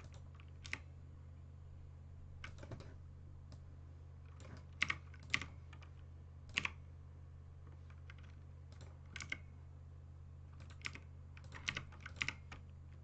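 Computer keyboard keys pressed one at a time at an irregular pace, a dozen or so separate clicks, as shortcuts are tapped while modelling in Blender. A steady low electrical hum runs underneath.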